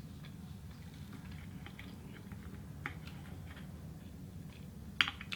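Soft chewing and small mouth clicks from someone eating, over a steady low hum, with one sharper click about five seconds in.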